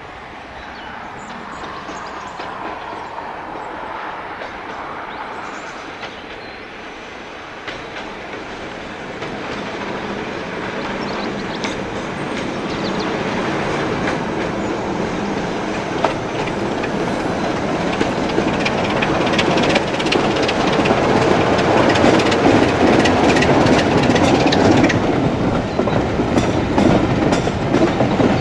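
Diesel locomotive hauling passenger coaches approaches, the sound growing steadily louder. It passes close by in the last seconds, with the rhythmic clickety-clack of coach wheels over rail joints.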